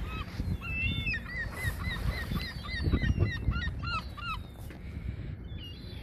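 A flock of gulls and geese calling: many short, hooked squawks in quick succession, thickest from about one to four and a half seconds in, over a low rumble.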